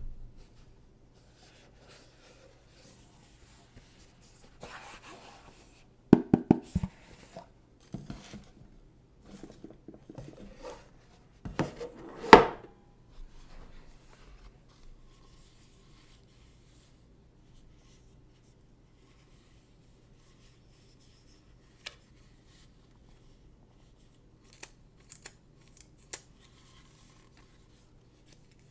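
Hands handling and opening an Apple TV's product packaging: rustling and scraping of cardboard and plastic, a quick run of light knocks about six seconds in, and a louder scrape or tear around twelve seconds. After that it is mostly quiet apart from a few light clicks.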